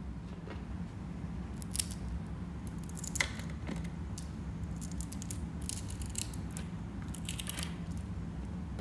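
Small neodymium magnet balls clicking and crackling as a cluster of them is squeezed and crushed together in the hand, close to the microphone. Quick flurries of sharp clicks come several times, over a faint steady low hum.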